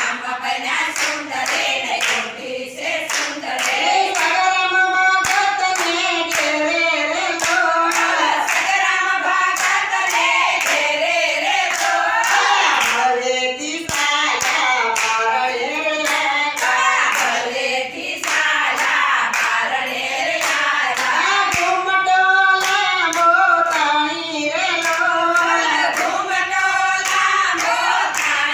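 Group of women singing a Gujarati Swaminarayan kirtan (devotional bhajan), a lead voice joined by the others, over steady rhythmic hand-clapping.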